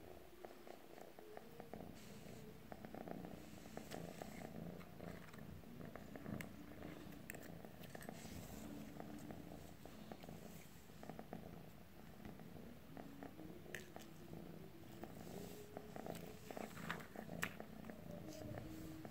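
A calico cat purring steadily and softly.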